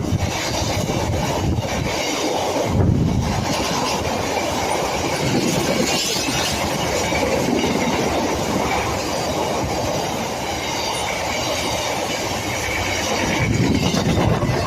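Train passing close by: steady rolling noise of wheels on rail, with no engine note standing out.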